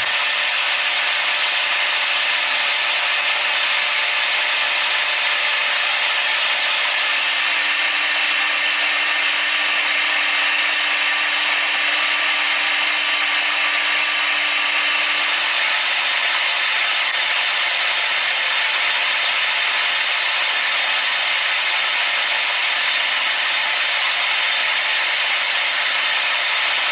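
CNC machine running through a cut: a steady, dense mechanical hiss and grind with no breaks.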